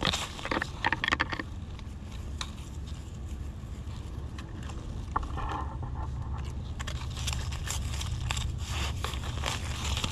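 Scraping, rustling and crackling of soil and dry leaf litter as termite mushrooms are dug out of the ground. The crackles are busiest at the start and again in the second half, over a steady low rumble.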